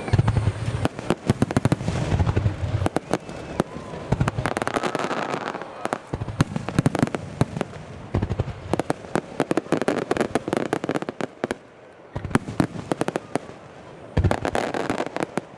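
Aerial fireworks shells bursting in a rapid starmine barrage: many sharp bangs in quick succession, with deep booms among them. The firing slackens briefly around two-thirds of the way through, then picks up again.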